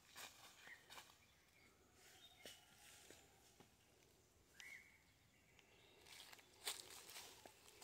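Faint footsteps on dry leaf litter, soft scattered crunches and rustles that get louder and closer together near the end, over quiet forest ambience.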